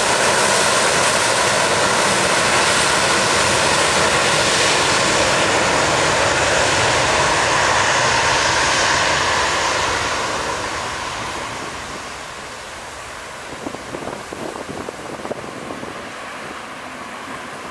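Airbus A320's twin jet engines at takeoff thrust: a loud, steady jet noise with a whine in it, fading from about ten seconds in as the aircraft accelerates away down the runway.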